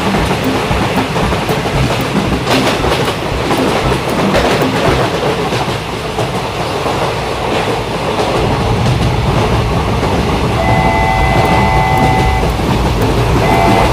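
Train running on rails with a steady clickety-clack rumble. Near the end a multi-tone train horn sounds, holds for about two seconds, stops, and sounds again just before the end.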